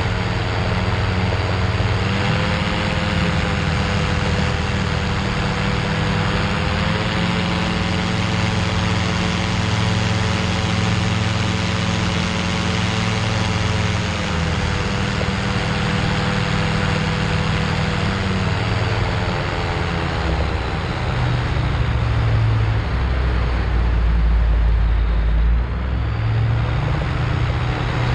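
Cygnet light sport amphibian trike's engine and pusher propeller running in flight, a steady drone. Its pitch steps up slightly about two seconds in and again a few seconds later, then eases down in two steps past the middle, after which a low rumble takes over near the end.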